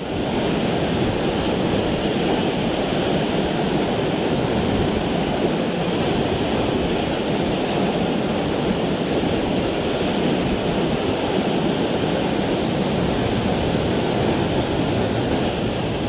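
Steady rush of a tall waterfall, even and unbroken throughout.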